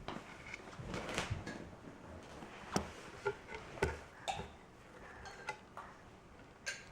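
Dishes and utensils clinking and knocking in a kitchen: a scattered series of short, sharp clicks, about eight over a few seconds.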